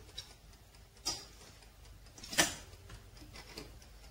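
Metal kitchen tongs clinking against a wire fryer basket and a stainless steel bowl: a few separate sharp clicks, the loudest about two and a half seconds in.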